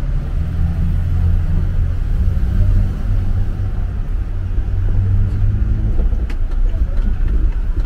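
A motor vehicle engine running low and steady, with a few light clicks near the end.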